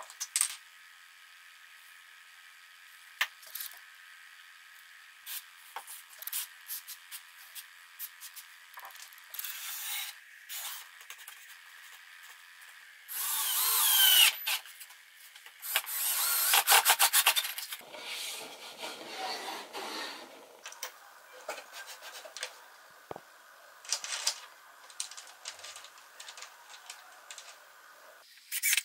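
Woodworking at the bench: light knocks and clicks of wooden pieces and hardware being handled, with a cordless drill-driver running in two short bursts about halfway through as it drills into and drives screws through a pine table brace.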